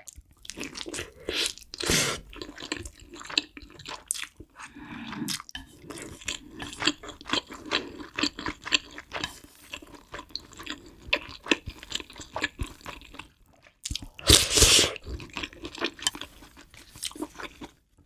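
Close-miked chewing and biting of food: bites of rolled egg omelette, then ramen noodles and kimchi stew, as dense irregular mouth clicks and smacks, with a short, louder noisy burst about three-quarters of the way through.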